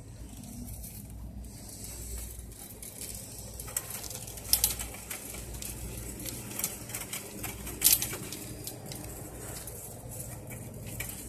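Green plastic shopping cart being pushed over carpet, with scattered sharp clicks and rattles, two of them louder, about four and eight seconds in, over a steady low hum.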